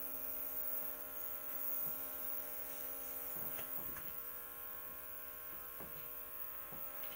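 Luminess airbrush make-up compressor running with a steady electric hum, with a few faint taps in the middle and later on.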